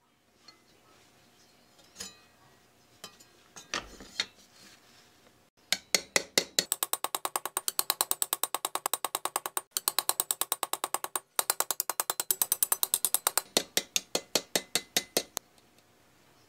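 A small hammer tapping a thin pressed-steel toy truck part against the horn of a steel anvil: a fast, even run of light ringing metallic strikes, about five or six a second, broken twice by short pauses. A few scattered clicks and knocks from handling the part come before it.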